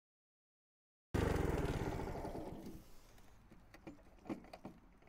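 Honda HRX217 push mower's engine running, cutting in suddenly about a second in and then dying away over the next two seconds, followed by scattered light clicks and knocks.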